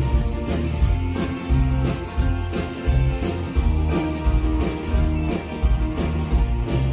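Live country band playing an instrumental stretch: electric guitars and bass over a drum kit keeping a steady beat with regular cymbal strokes.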